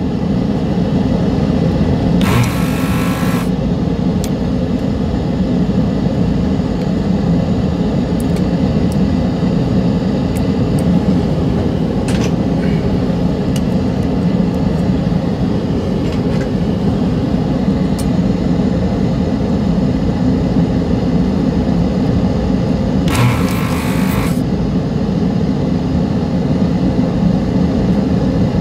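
A steady low machine hum, broken by short hissing bursts of about a second from a desoldering gun's vacuum suction: once about two seconds in, once near the end, and again at the close. The gun is drawing solder off the pins of the old Omron China 20M mouse switch so it can be pulled out.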